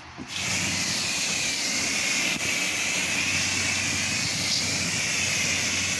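Pressure washer spraying water: a steady, loud hiss of the jet over a low engine-driven pump hum, starting suddenly just after the start. It is the rinse-down of the surface before the cleaning solution goes on.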